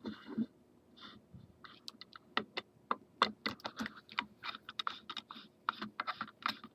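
Irregular light clicks and taps, a few a second and thickening from about two seconds in, as the cover of an Ioline SmarTrac carriage is handled and worked off.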